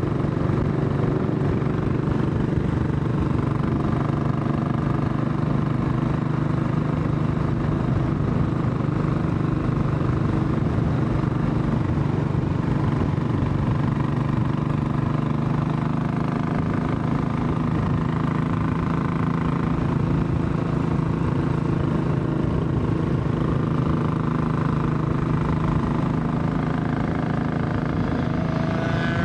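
Royal Enfield Classic 500's air-cooled single-cylinder engine running steadily under way, heard from the rider's position.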